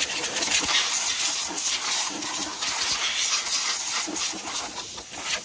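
Compressed-air blow gun hissing steadily as it blasts dust out of the engine bay around the high-pressure fuel pump.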